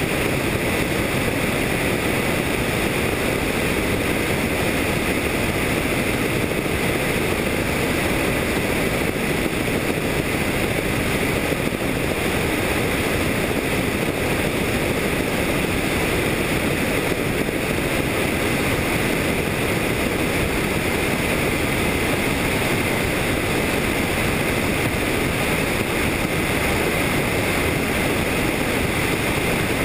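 Helicopter in flight: a steady, unbroken rush of engine, rotor and airflow noise.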